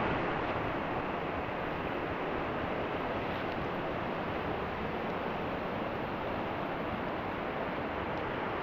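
Woodland trout stream rushing steadily over riffles, running high after rain.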